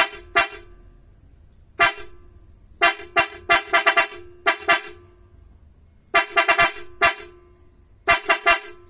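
A pair of Mitsuba small-head 'çat çat' electric car horns sounded in short blasts, some single and some in rapid clusters of three to five taps, with a harsh, buzzy tone and quiet gaps between them.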